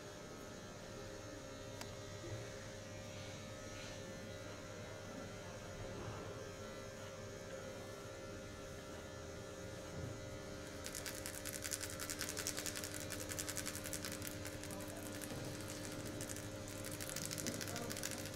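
A steady electrical hum. About two-thirds of the way in, a fast, scratchy rubbing sound joins it and carries on.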